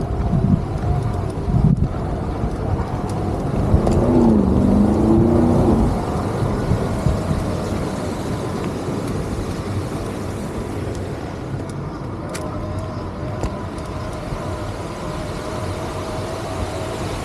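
Traffic noise on a busy city street, a steady low rumble with a faint steady whine. A short wavering pitched sound comes about four seconds in.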